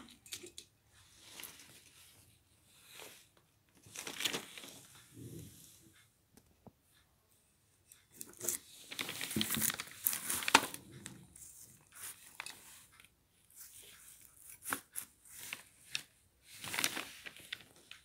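Handling noise: irregular rustling and crinkling as a decorated clay pot with plastic foliage is turned and adjusted on newspaper, with a few sharp taps, the loudest about ten and a half seconds in.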